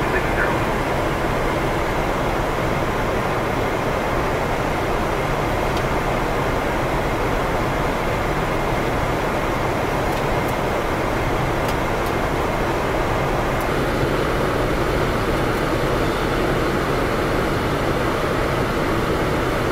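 Steady, even rush of flight-deck noise in a Boeing 787 at cruise altitude: airflow and air-conditioning hum.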